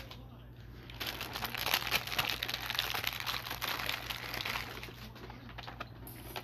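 Crinkling and crackling of something being handled out of view, starting about a second in and easing off after some four seconds.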